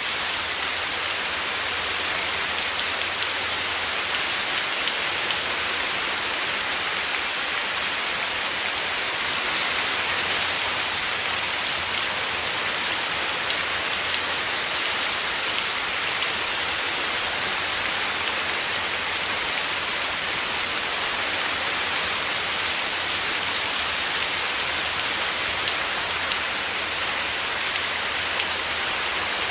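Heavy rain falling steadily, a dense even hiss of countless drops with no breaks or swells.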